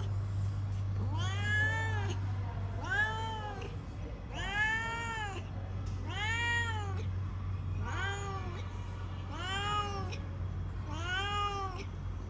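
A cat meowing over and over: seven separate meows about every second and a half, each rising and then falling in pitch. A steady low hum runs underneath.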